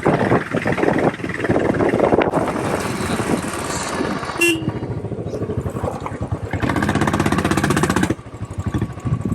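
Motorcycle engine running at low speed, then settling into a steady idle before its sound drops away about eight seconds in.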